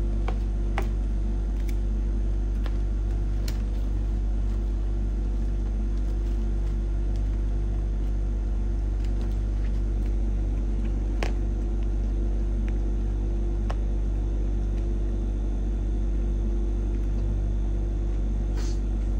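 Steady low hum and rumble of background noise, with a few faint light clicks from handling the clear plastic bubble balloon and its gypsophila and feather filling.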